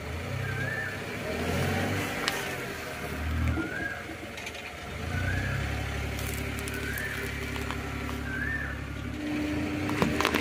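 Car engine running low as the car creeps forward over cups of marbles, with a few sharp cracks as the tyre crushes them.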